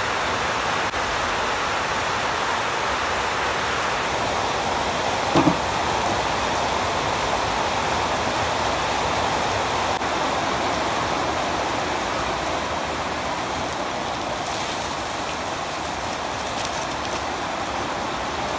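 Steady, even rushing noise with a short, loud knock about five and a half seconds in.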